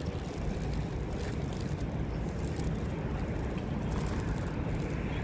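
Steady low rumble of outdoor city ambience: wind buffeting the phone's microphone over distant traffic.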